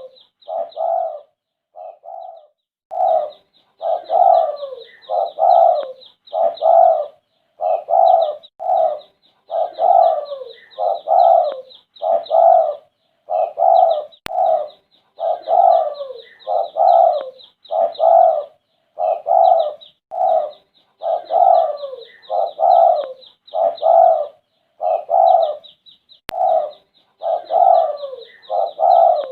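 Spotted dove (derkuku) cooing over and over, one low coo phrase about every second, with a brief pause near the start. A steady high chirping runs beneath the coos.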